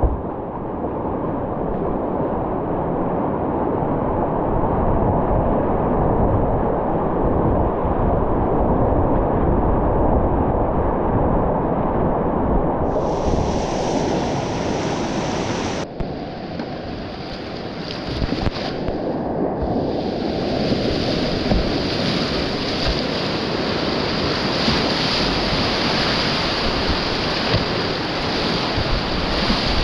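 Rushing whitewater of a Grade 3 river rapid, heard up close from a kayak in the current, with wind noise on the microphone.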